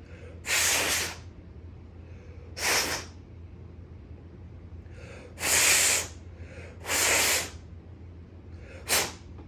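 A man blowing hard puffs of breath through his mouth to clear dust and oil off Optispark distributor parts, in place of compressed air. Five blasts, each about half a second long, with quick breaths drawn in before several of them.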